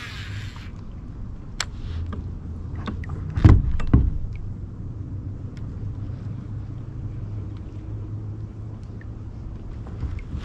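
A steady low rumble, with two heavy thumps about half a second apart, a little over three seconds in, as of knocks against a plastic kayak hull. A few small clicks are scattered through.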